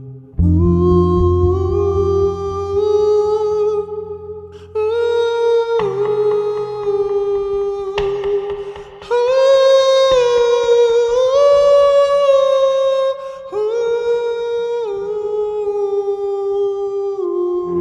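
Slow live music: long held melodic notes that step from pitch to pitch, over a low sustained drone.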